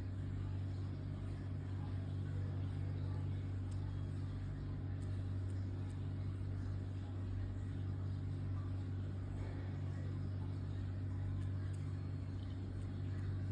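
Steady low hum of background noise, with no alarm or beeping.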